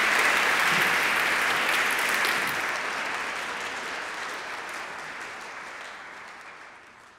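Audience applauding, the clapping fading out steadily over the last few seconds.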